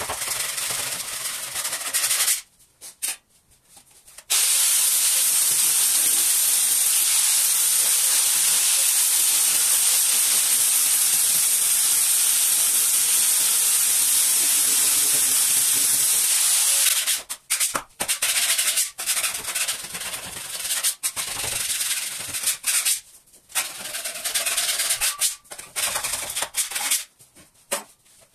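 Wooden boards being sanded. Short rasping strokes give way to about twelve seconds of continuous steady hiss with a faint high whine, and then broken rasping strokes return.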